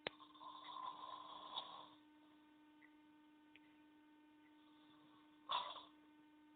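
A person snoring: a long raspy breath lasting under two seconds, then a shorter, louder one about five seconds in, over a steady electrical hum.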